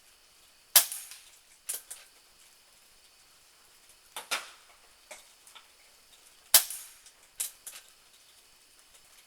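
Benjamin Marauder .22 pre-charged pneumatic air pistol fired twice, two sharp shots about six seconds apart. Fainter clicks and knocks come between and after the shots.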